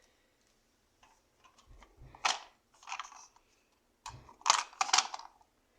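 Small plastic toys being handled and set down, giving a few sharp clicks and knocks with light thuds, the loudest cluster about four and a half seconds in.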